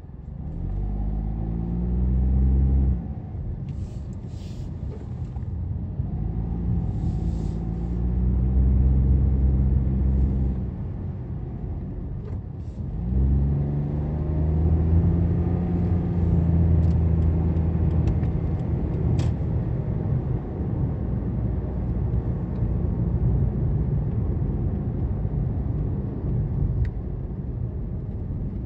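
Car engine heard from inside the cabin as the car pulls away from the lights and accelerates. The engine note rises and breaks off several times, then runs steadily with tyre and road rumble.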